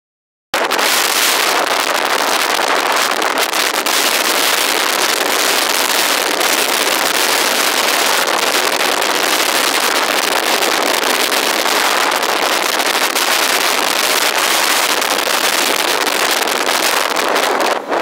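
Motorboat under way: a loud, steady rush of wind and running noise over the microphone, starting about half a second in, with a brief dip near the end.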